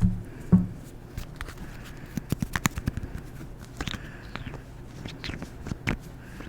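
Close-miked ASMR mouth sounds: a run of irregular wet clicks and lip smacks, with a louder knock about half a second in.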